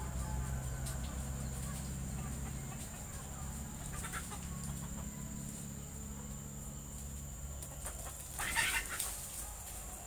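Birds calling: chickens clucking, and a brief, loud, harsh bird call near the end, over a low steady hum.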